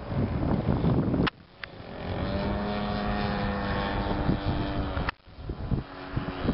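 DLE-55 single-cylinder two-stroke petrol engine of an RC airplane running in flight overhead: a steady, distant pitched drone, plainest from about two seconds in until it cuts off sharply about five seconds in. Wind buffets the microphone in the first second or so.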